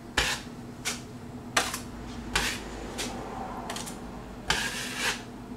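Metal drywall knife scraping joint compound across a patched wall, about six short scraping strokes, the last, near the end, longer.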